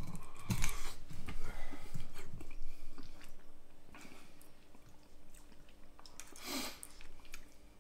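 A person chewing a mouthful of soft minced-beef and mashed-potato pie close to the microphone: irregular wet mouth and jaw clicks, loudest in the first three seconds and quieter after. A brief breathy hiss comes about six and a half seconds in.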